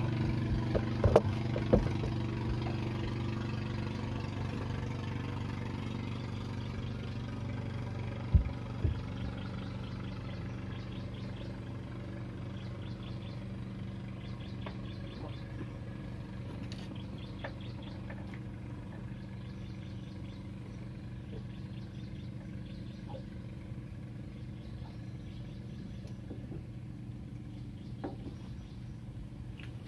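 A motor boat's engine running at a steady low pitch, slowly fading away. A few sharp knocks are heard about one to two seconds in and again about eight seconds in.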